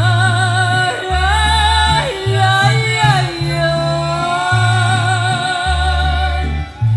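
A song: a singer holds long notes with a wavering vibrato over a deep bass line that changes note about once a second.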